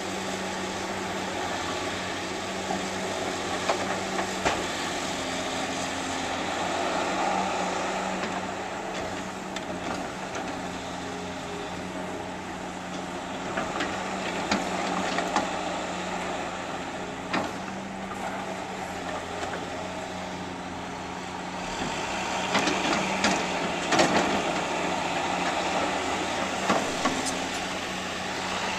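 Heavy diesel demolition machinery running steadily, with scattered sharp clanks and knocks as broken concrete slab is handled, busiest near the end.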